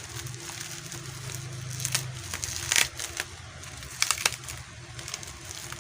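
Plastic protective packaging being handled and crinkled while a parcel is unwrapped, with irregular sharp crackles, the loudest about two seconds in, near three seconds and around four seconds. A steady low hum runs underneath.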